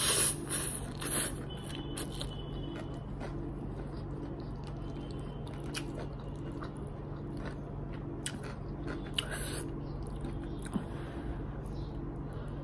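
Close-up eating sounds: noodles sucked in and chewed with wet mouth noises in the first second or so, then softer chewing with small clicks and a plastic fork scraping in the takeaway tray. A steady low hum runs underneath.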